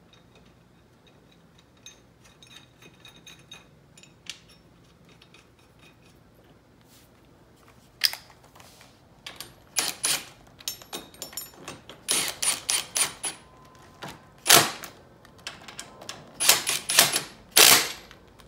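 Hand ratchet clicking in quick bursts as steel bolts are run in, with metal parts and tools clinking. Only faint ticks of handling come before it, for the first several seconds.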